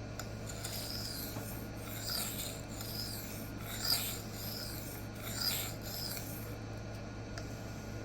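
A K110 steel knife blade stroked back and forth across a CBN sharpening plate by hand, a hissing scrape with each stroke, about one a second, stopping about two-thirds of the way through.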